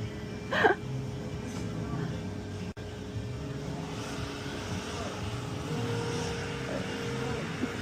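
Steady low rumble of vehicle traffic, with a faint steady hum joining about six seconds in.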